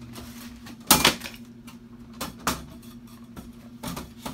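Garage-door mail slot clacking as mail is pushed through it: a few sharp knocks, one about a second in, two around two and a half seconds, and one near the end. Underneath runs the low, steady 60-hertz hum of a mid-1950s Ilg Model 83 exhaust fan's motor.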